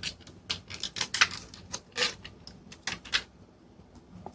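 Handling of a plastic-and-cardboard product package: a quick run of sharp clicks and rustles that dies down about three seconds in.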